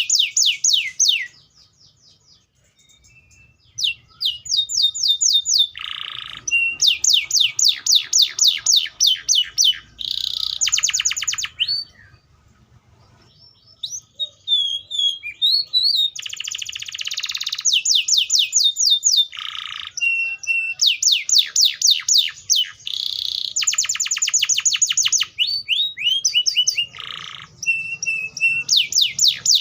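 Canary (Serinus canaria) singing: a long run of fast trills, each a rapid string of repeated high notes sweeping downward, mixed with buzzy rolls, broken by short pauses about two seconds in and again near the middle.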